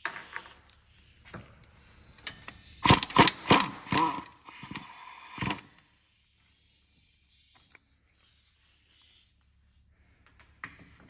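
Metal hand tools working on the brake caliper bolts: about half a dozen sharp, ringing metallic clanks in the middle, with lighter clicks and knocks before and after.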